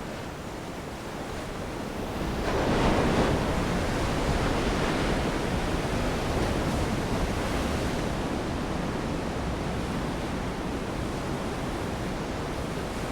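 Big ocean waves breaking: the surf swells to its loudest about three seconds in, then carries on as a steady roar of breaking and washing water.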